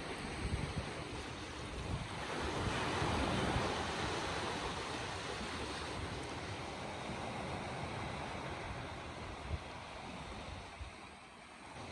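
Small waves washing and breaking over shoreline rocks, swelling about three seconds in and easing off near the end, with wind buffeting the microphone.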